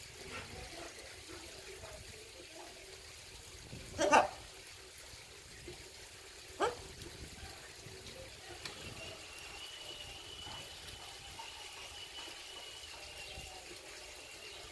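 Blue-and-gold macaw giving two short calls, about four seconds and six and a half seconds in, the first the louder, over a faint steady hiss.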